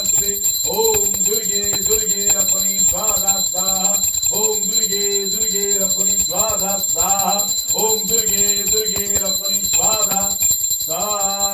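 A puja hand bell rings continuously during an aarti, with a voice chanting in short repeated phrases over it.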